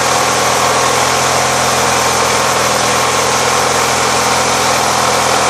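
Zero-turn mower engine running steadily, driving a homemade bandsaw mill whose tire-wheels and pulleys spin; an even, unbroken mechanical drone.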